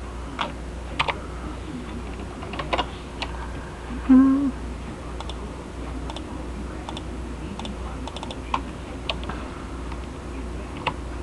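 Irregular clicks of a computer mouse and keyboard keys over a steady low hum. A short hummed voice sound comes about four seconds in.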